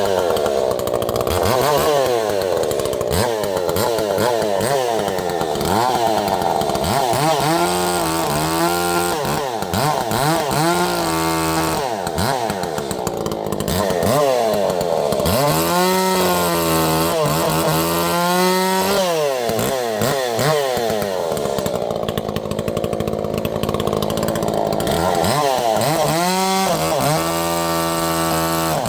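Echo two-stroke chainsaw cutting wood, its engine pitch repeatedly dropping under load in the cut and rising again as it revs free.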